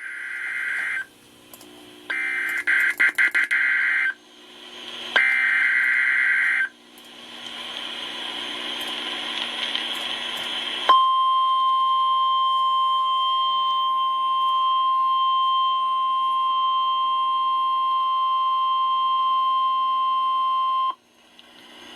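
NOAA Weather Radio alert header: three short warbling SAME data bursts, then a rising hiss, then the steady single-pitch 1050 Hz Warning Alarm Tone for about ten seconds, which cuts off abruptly. Together they announce a new warning, here a special marine warning.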